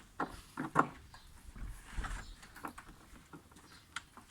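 Lawnmower parts being pushed and knocked together during assembly as a part is forced into its socket: a quick run of sharp clicks and knocks in the first second, the loudest about a second in, then fainter scattered taps and handling rumble.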